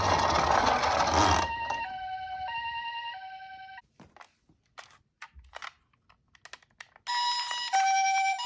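Two-tone ambulance siren, Japanese 'pee-poh' style, swapping between a high and a low note about every half second. It follows a short burst of noise, stops just under four seconds in, leaves a quiet gap with a few faint clicks, and starts again louder about seven seconds in.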